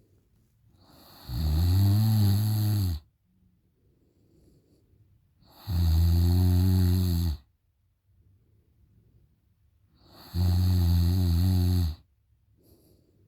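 A woman snoring loudly with her mouth open: three long snores, each about a second and a half, coming roughly every four and a half seconds with quiet breathing between.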